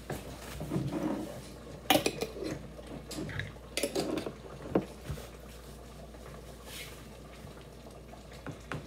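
Glass sauce jars clinking and knocking as they are handled, with a few sharp clinks in the first five seconds, then quieter.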